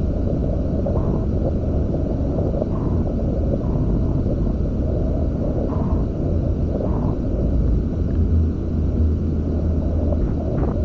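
Wind buffeting the microphone of a 360 camera on a catamaran under sail: a deep, steady rumble.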